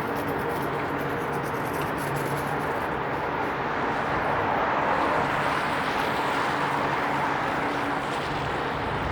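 Traffic on a rain-wet city street: steady tyre hiss on wet pavement, swelling as a vehicle passes about five seconds in, over a faint low engine hum.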